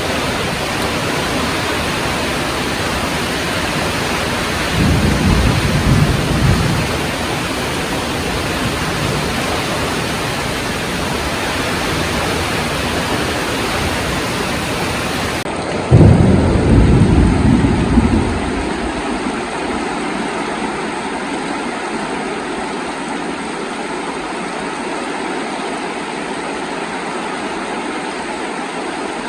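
Heavy rain falling steadily, with two short low rumbles of thunder, about five seconds in and again about sixteen seconds in. Just before the second rumble the rain sound changes abruptly to a duller, quieter steady noise.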